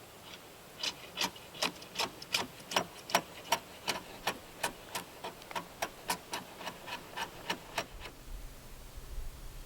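Hand tool working a timber beam in quick, even strokes, about three a second, stopping about eight seconds in; a low hum comes in after them.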